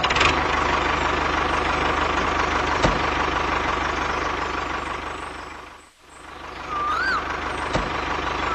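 Steady vehicle engine running with a fast, fine rattle. It fades almost away about six seconds in, then comes back, with a couple of short chirps near the end.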